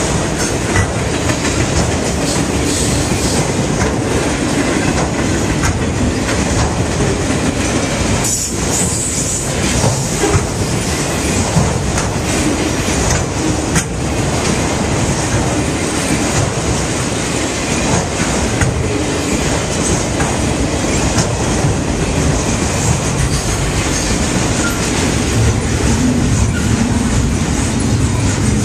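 Freight train cars rolling past, wheels clacking over rail joints in a loud, steady rumble.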